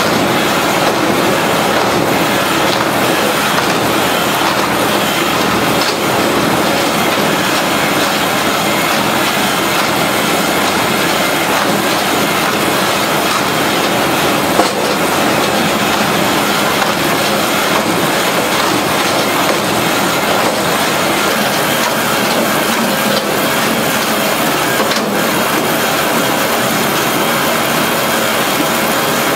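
A firewood processing machine running with a steady, loud mechanical clatter, with a few short knocks, the plainest about halfway through.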